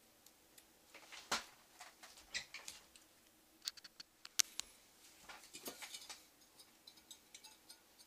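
Irregular light clicks, taps and small knocks from computer hardware being handled on a desk, the sharpest about halfway through, as the tower CPU heatsink is picked up.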